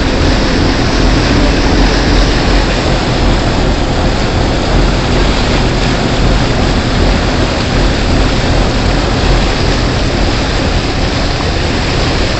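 Boat engine running steadily with a low hum under a loud, even rush of wind and water noise.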